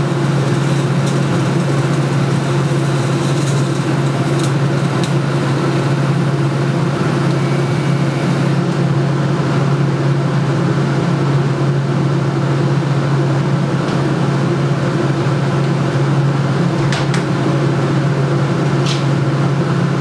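Steady electric buzz of a TIG welding arc on steel tube, with a few faint crackles.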